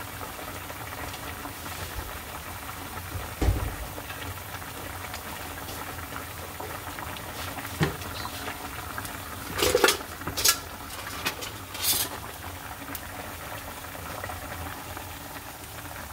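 Chicken soup broth simmering in a wide pan on a gas burner, a steady bubbling. A low thump about three and a half seconds in, and a few sharper pops and clicks around ten and twelve seconds in.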